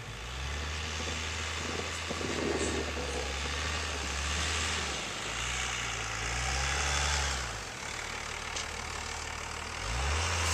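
An engine running with a low hum that rises in pitch about halfway through, falls away and picks up again near the end, over a steady hiss.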